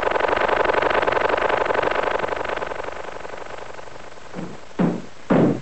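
Cartoon lawnmower sound effect: a loud, fast, steady buzzing that fades away over about four seconds. It is followed by a beat of heavy thudding pulses, about two a second.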